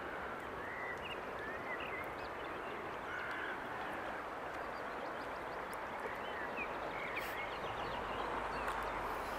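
Woodland ambience: a steady background hiss with faint, short bird calls scattered through it.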